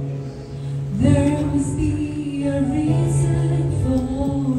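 A woman singing a gospel song over an instrumental accompaniment of held low notes; her voice comes in about a second in.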